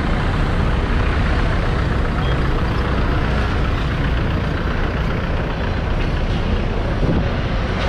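Street traffic at close range: car engines running as taxis and cars crawl past, a steady low rumble under the general street noise.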